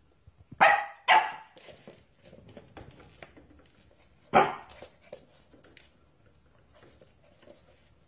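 Corgi puppy barking: three short, sharp barks, two close together about a second in and one more past four seconds in, with faint taps between.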